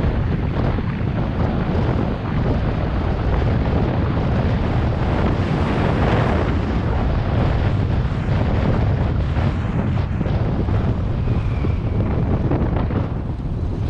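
Wind buffeting the microphone of a camera riding on a moving vehicle: a steady, heavy low rush mixed with road noise.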